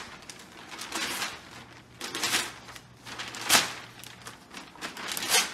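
Newspaper rustling and tearing as a dog rips strips off it with its teeth, in four short bursts, the loudest about three and a half seconds in.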